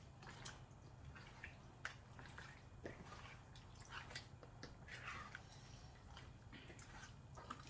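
Faint scattered kitchen handling noises over a low steady room hum: a few soft clicks and brief wet, rustling sounds of food and containers being handled.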